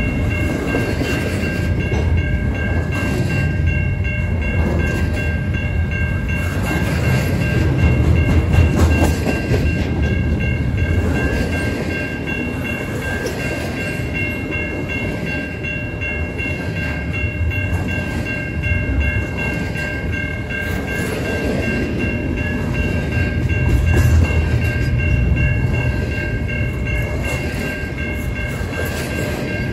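Double-stack intermodal container train rolling past close by: steel wheels rumbling and clacking along the rail, with steady high-pitched tones held over the rumble. The loudness swells about a third of the way in and again near the end.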